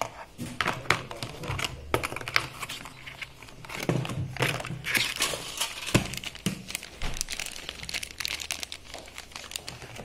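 Paper and plastic packaging from a blood glucose meter kit crinkling and rustling irregularly as hands handle it in the kit's plastic case. A sharper knock comes about six seconds in.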